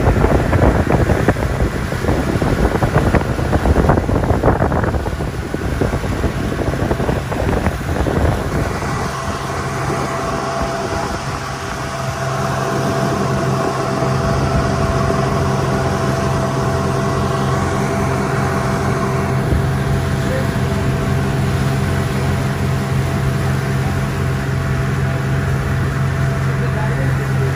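An engine running at a steady speed, a constant hum, with wind buffeting the microphone for the first several seconds.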